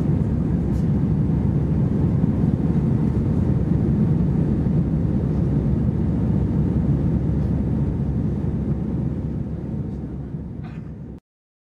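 Steady low cabin drone of an Airbus A320-214 in flight, from its CFM56 engines and the airflow past the fuselage, heard from a window seat by the wing. It fades over the last couple of seconds, then cuts off suddenly.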